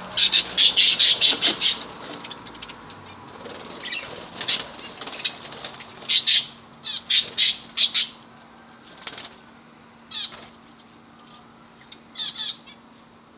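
Lovebirds calling in short, shrill chirps that come in quick clusters: a dense run about a second in, more around six to eight seconds in, and a last pair near the end.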